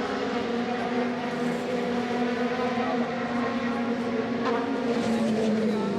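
The 4.0-litre V8 of a 2016-spec Mercedes-AMG C63 DTM race car running steadily during its warm-up. The pitch dips slightly near the end.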